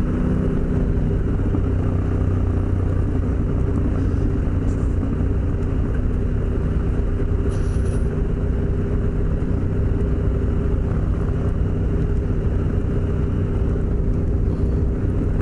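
Adventure motorcycle engine running at a steady pace while the bike is ridden, over a constant rush of wind and road noise.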